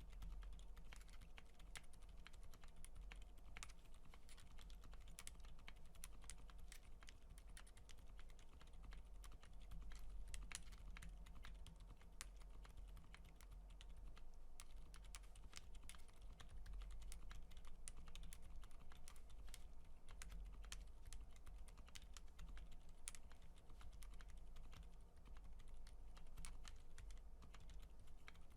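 Continuous typing on a TKC Portico mechanical keyboard with Krytox-lubed Silent Alpaca silent linear switches, an FR4 plate and PBT keycaps: a quiet, rapid stream of soft, muted keystrokes over a steady low hum.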